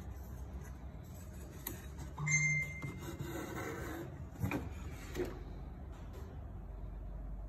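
Aluminium door-frame sample being handled and its leaf swung open on a barrel-type door hinge: soft rubbing, then two light knocks about four and a half and five seconds in. A brief high tone sounds a little over two seconds in.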